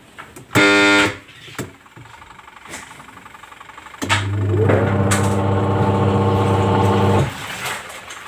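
Washing machine motor humming without turning freely. A short hum comes about half a second in, then a steady, loud hum lasts about three seconds from about four seconds in. This is the machine sticking, which the repairman puts down to a likely damaged bushing.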